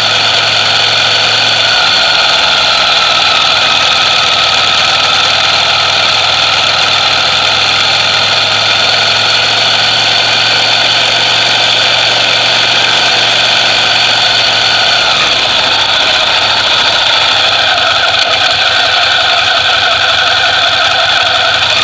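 Ducati Monster EVO's air-cooled L-twin engine idling steadily through its stock exhaust, with a slight change in tone about fifteen seconds in.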